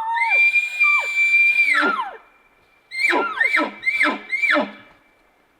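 Bull elk bugling: a long high whistle held for nearly two seconds that drops away at the end, followed by four quick chuckles, each a sliding drop in pitch.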